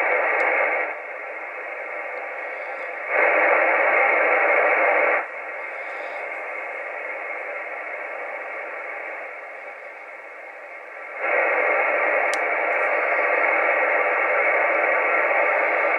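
Ranger AR3500 ten-metre radio receiving on an outside antenna: a steady, narrow-band static hiss from its speaker with no voices and no power hum. The hiss is louder for the first second, again for about two seconds around three seconds in, and from about eleven seconds on.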